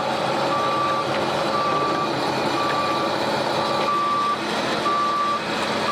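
Backup alarm on heavy construction equipment beeping about once a second, each beep a single steady tone, over the steady running of the machine's engine.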